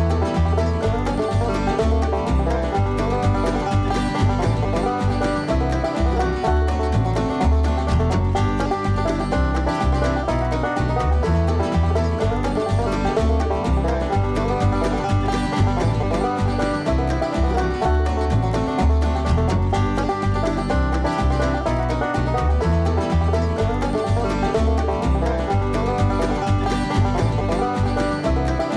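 Bluegrass-style music led by a plucked banjo, with a steady bass beat.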